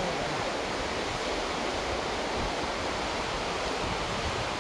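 Glacial meltwater rushing steadily, an even, unbroken hiss of fast-flowing water.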